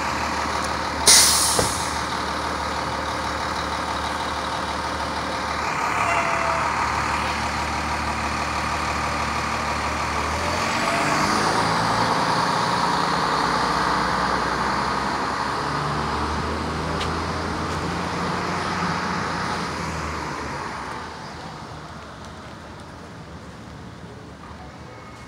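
School bus diesel engine running close by, with a sharp burst of air-brake hiss about a second in. The engine noise swells through the middle and fades away over the last few seconds.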